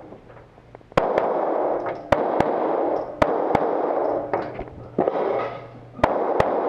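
Pistol shots fired in quick pairs, the two shots of each pair about a third of a second apart, with echo ringing after each. This is a shooter running a defensive-pistol course of fire.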